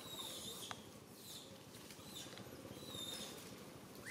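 Long-tailed macaques giving short, high squeaks roughly every half second, with one sharp tick under a second in.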